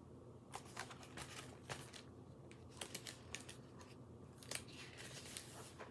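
Faint rustling and crinkling of picture-book pages being handled and turned: a string of short, soft paper crackles and scrapes over a steady low hum.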